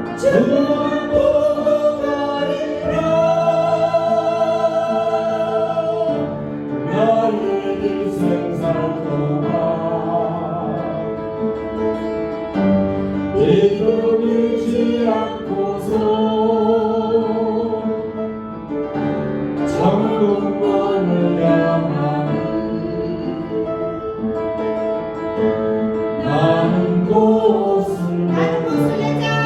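Group of worshippers singing a Korean gospel song together, held sung notes over instrumental accompaniment.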